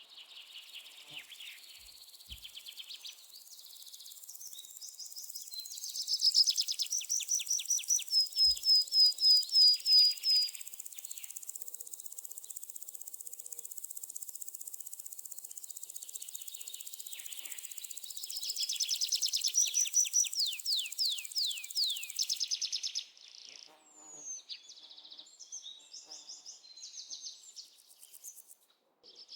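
Forest ambience: songbirds singing phrases of quick repeated notes, loudest twice, over a high insect hum that stops abruptly about three-quarters of the way through, leaving scattered chirps.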